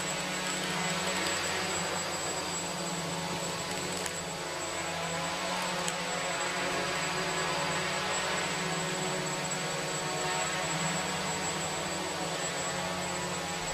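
Small FPV quadcopter's electric motors and propellers buzzing steadily in flight, the pitch wavering slightly as the throttle changes.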